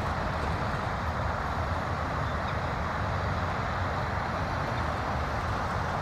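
Steady rushing of a river's flowing water, an even noise that does not change.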